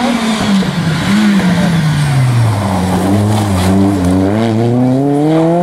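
A first-generation Renault Clio rally car's engine at full stage pace. Its pitch falls about two seconds in as the car brakes into the corner, then climbs steadily as it accelerates out.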